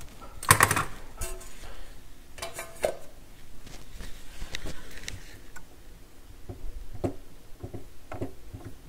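A metal turntable platter clunks with a brief ring as it is set down on a wooden bench, followed by a few more handling knocks. Later come light, quick clicks and taps of fingers working at the exposed turntable mechanism under the platter.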